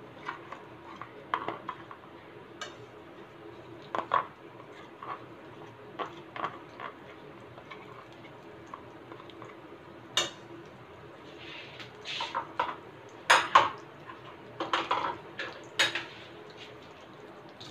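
Butter melting in a hot nonstick wok with a faint, steady sizzle, under scattered clinks and knocks of kitchenware. The clinks come thicker and louder near the end.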